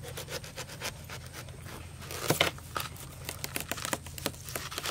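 A knife cutting lengthwise through a watermelon's rind and flesh, with a run of crackles as the melon splits open and a louder crack a little over two seconds in.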